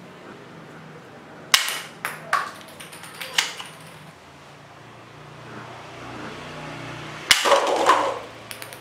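Toy guns being handled: three sharp plastic clacks in the first half, then a longer clatter about three quarters of the way through.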